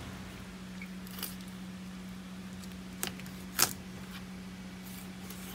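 A hand-forged Japanese kitchen knife cutting through a whole fish behind the head, with a few short crunches and clicks as the blade goes through the gill area and bone, the loudest about three and a half seconds in. A steady low hum runs underneath.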